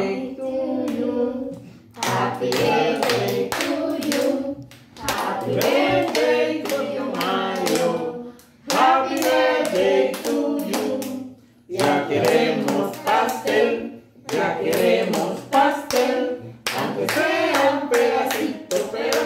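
A small group of children and adults singing a birthday song together in phrases, clapping their hands along with it.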